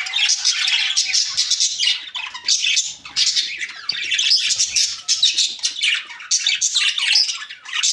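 Several baby parrots squawking continuously in a dense, harsh chorus of overlapping calls.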